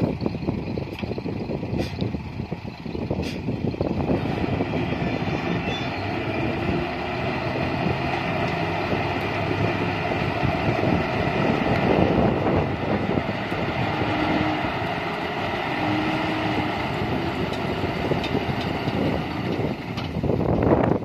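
Nissan Diesel dump truck's diesel engine running steadily while it powers the hydraulic hoist that raises the tipper body to dump a load of earth.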